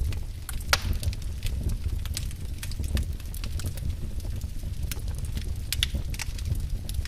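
Wood fire crackling in a fireplace: many sharp, irregular pops and snaps over a steady low rumble, with one louder pop about a second in.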